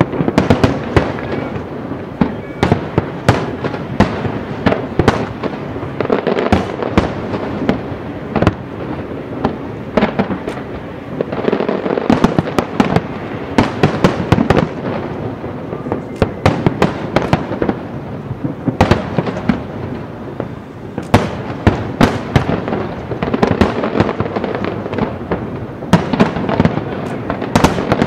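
Dense barrage of aerial firework shells bursting, sharp booms in quick succession over continuous crackling.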